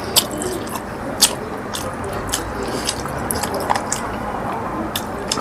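Close-up mukbang eating sounds: a person chewing with frequent wet mouth clicks and smacks at an irregular pace, over a steady low background hum.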